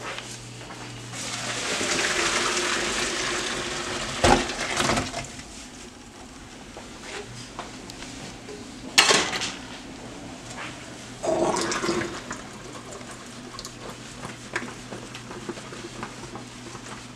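Hot water from a pot of boiled green bell peppers poured into a colander in a kitchen sink: a rush of pouring water for a few seconds, followed by a few sharp knocks of the pot.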